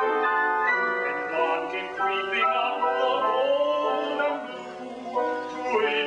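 Upright piano accompaniment playing a slow instrumental passage of a ballad, its chords sustained and changing every second or so.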